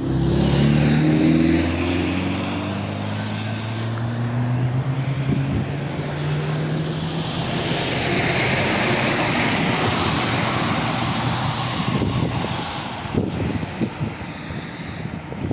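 Traffic passing on a wet road: a vehicle's engine note falls in pitch as it goes by, then a rushing hiss of tyres on the wet asphalt swells and fades. Wind buffets the microphone near the end.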